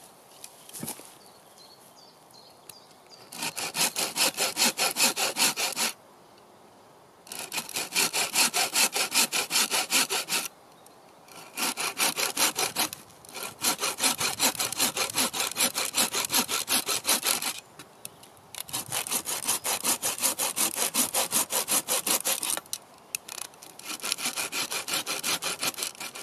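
Bow saw cutting a small notch into a branch: fast back-and-forth strokes in five bouts with short pauses between them, starting about three seconds in.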